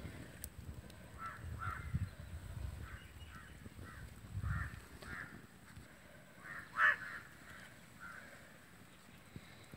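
Crows cawing in a string of short calls, the loudest about seven seconds in. Low rumbles come near the start and again about four and a half seconds in.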